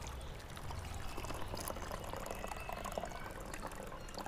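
Homemade liquid organic fertilizer being poured through a strainer, a steady trickle with small splashes and crackles.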